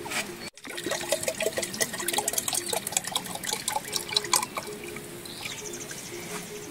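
Water splashing and dripping in quick irregular spatters that thin out after a few seconds.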